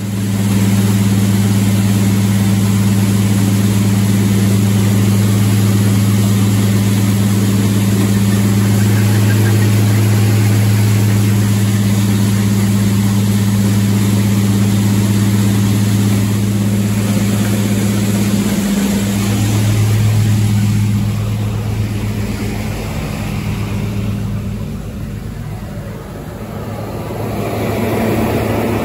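Grain-bin drying fan and electric auger motor running together: a loud, steady low hum over a rush of air, as the fan forces air through the bin and out the auger. About twenty seconds in the hum fades, and a higher rushing noise from the torpedo heater rises near the end.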